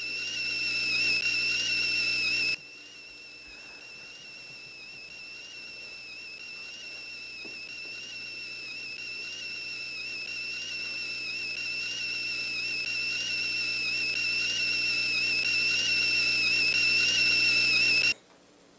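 Stovetop whistling kettle whistling at the boil: one steady, high, slightly wavering whistle. It drops sharply in level about two and a half seconds in, then grows steadily louder until it cuts off suddenly near the end as the gas burner is turned off.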